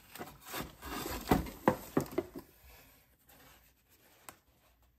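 Cardboard box dividers and a blister-carded action figure scraping and knocking as the card is pulled out of the box, with a cluster of sharp knocks in the first half, then quieter handling.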